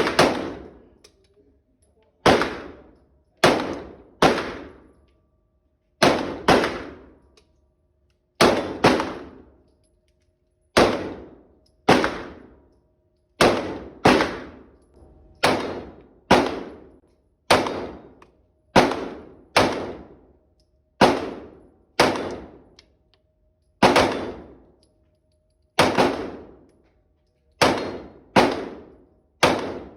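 Glock 26 9mm pistol firing a long string of shots, about thirty in all, mostly a half-second to a second apart, with a few short pauses between strings. Each shot is a sharp crack with a ringing tail.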